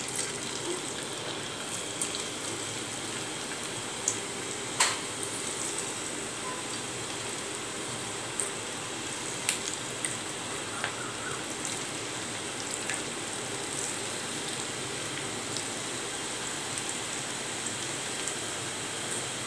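Masala-coated peanuts deep-frying in hot oil in a non-stick pan: a steady sizzling hiss with a few sharp pops scattered through it as more pieces are dropped in.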